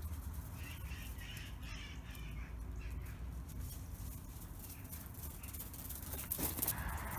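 Dog paws crunching on gravel as Cavalier King Charles spaniels run about, with louder crunching near the end as one trots close by. Faint bird calls in the first few seconds.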